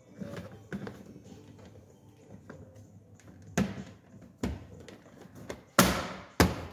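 Plastic dashboard end trim panel being pressed and tapped into place by hand: light handling rustle, then four sharp plastic knocks and snaps, the loudest two in the last second, as its clips seat.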